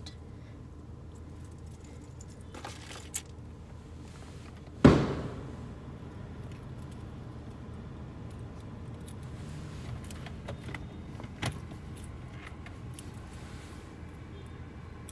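Gold-tone metal link watch bracelet clinking and rattling as it is put on the wrist and handled, with a few sharp clicks and one loud thump about five seconds in, over a steady low hum.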